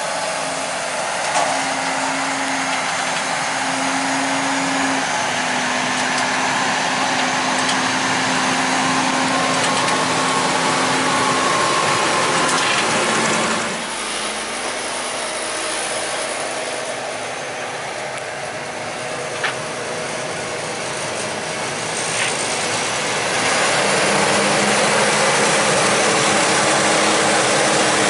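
Diesel engines of New Holland farm tractors with front push blades working hard while pushing and packing a corn silage pile: a steady engine drone under a wide rush of noise, stepping in pitch now and then. The sound shifts abruptly about 14 seconds in and again about 23 seconds in.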